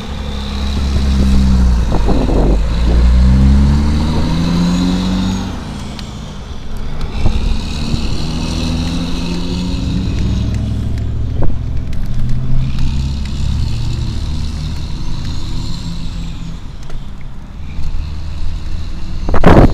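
Road traffic passing close by: truck and car engines, their pitch rising and falling as one vehicle after another goes past. The traffic is loudest in the first few seconds.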